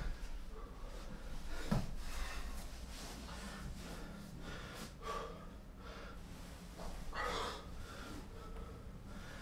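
A man breathing hard between exercises, with loud, short, noisy breaths every second or two, out of breath from squats and sit-ups. There is a soft thump just under two seconds in.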